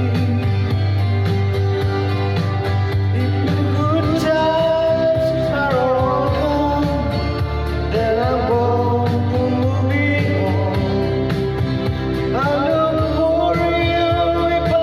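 Country-folk song with a wavering sung melody over steady accompaniment.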